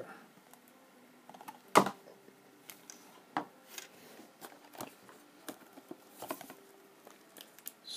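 Handling noise from a small vinyl figure and a cardboard blind box being moved about on a wooden desk: scattered light taps and clicks, with one sharper knock about two seconds in.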